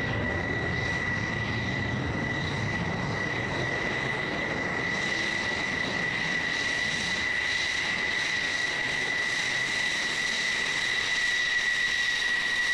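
F-16 Fighting Falcon's single turbofan engine running at taxi power: a steady high-pitched whine over a rushing rumble.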